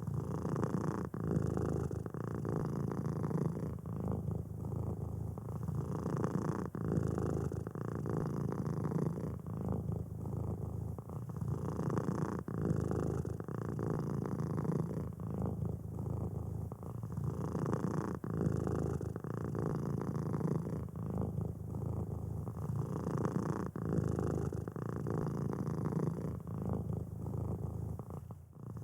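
Domestic cat purring steadily, a low continuous rumble that swells and eases with each breath, about every two seconds.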